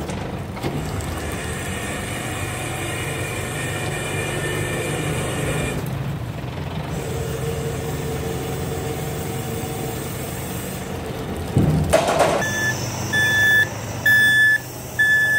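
Rotary-plate garbage truck's packing mechanism running with a steady mechanical hum as the plate sweeps the hopper. A sudden loud burst of noise comes about twelve seconds in, then a warning beep repeats about once a second.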